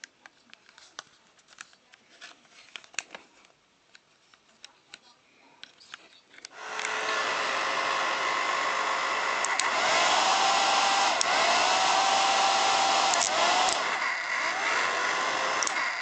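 Light plastic clicks and handling, then about six and a half seconds in a Philips HP8116 hair dryer switches on and blows steadily, with a few short rising whistle tones in its airflow, until it cuts off at the end.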